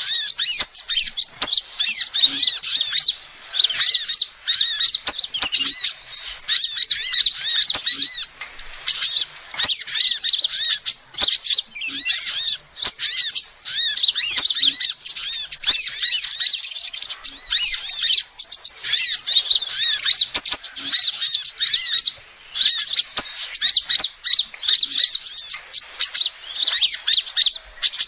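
Female sunbird (Indonesian 'kolibri') calling: a fast, almost unbroken stream of high, wavering chirps and twitters, broken by a few brief pauses.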